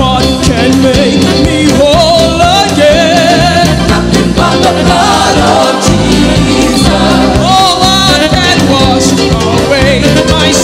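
Gospel worship music: singing over a band with a steady beat.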